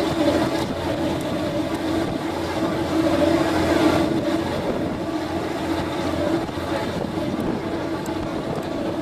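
Boat engine running steadily while under way: a constant drone with a steady hum, and a hiss of wind and water over it.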